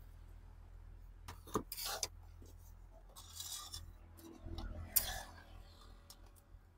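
Steel serving spoon scraping the metal kadhai and clinking on stainless steel plates as curry is spooned onto rice: a handful of short scrapes and clinks, the sharpest about five seconds in.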